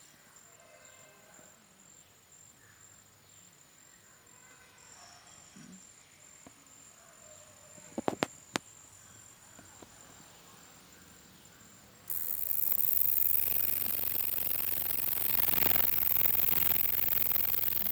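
Faint, high-pitched, finely pulsing trill of a green insect, with a few sharp clicks about eight seconds in. About two-thirds of the way through, a loud, even hiss suddenly starts and covers it.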